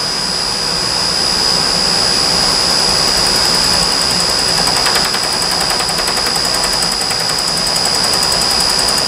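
Bridgeport milling machine spindle running with a steady high-pitched whine while its cutter skims about six thousandths off the face of a Predator 212 Hemi cylinder head. A fine rapid ticking joins about three seconds in.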